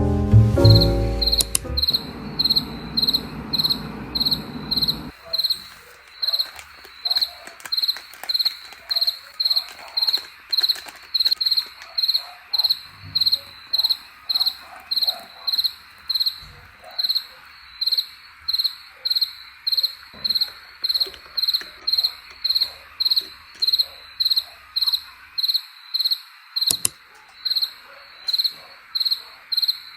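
Cricket chirping steadily: short, high-pitched chirps at an even pace of about two a second. It comes in as background music fades out in the first few seconds.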